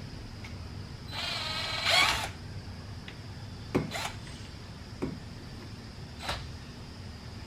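A short ratcheting buzz about a second in, then a few sharp clicks and taps of small parts and tools being handled, over a low steady hum.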